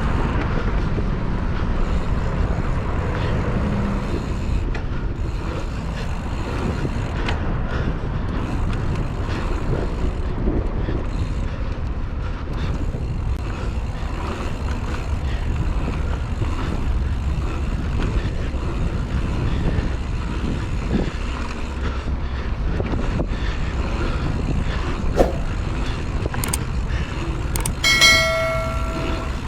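Steady wind and trail rumble picked up by a helmet-chin-mounted GoPro while riding a mountain bike, with scattered faint knocks. Near the end comes a brief high-pitched squeal lasting about a second.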